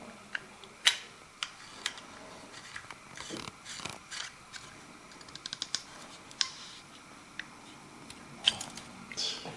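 Small plastic and plaster parts of a dental model base-plate system being handled: scattered sharp clicks and taps as the white plastic holder is worked on and off the base plate, with a quick run of small clicks about halfway through and a few soft rubbing sounds.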